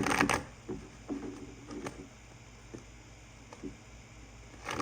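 Handling noise from small objects such as charms or cards: two short rattling bursts, one at the start and one near the end, with a few light clicks and taps between.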